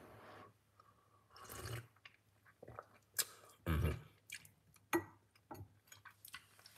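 Sips of a hot drink taken from a glass cup, with swallowing and small clicks of the glass against its saucer.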